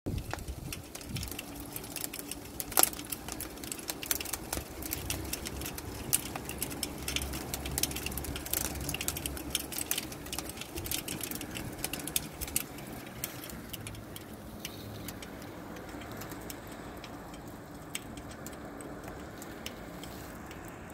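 Hail falling: a dense, irregular patter of sharp little ticks and clicks as the pellets strike the window sill and the ground. It thins out to scattered taps about two-thirds of the way through.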